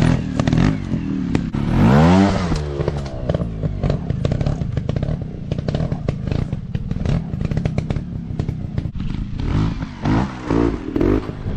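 Dirt bike engine running and being revved, its pitch climbing sharply about two seconds in and again near the end, over a constant rattle of clicks and knocks.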